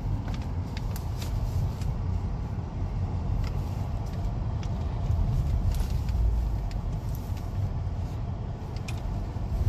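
Low, steady rumble of a car driving slowly, heard from inside the cabin, with a few faint ticks.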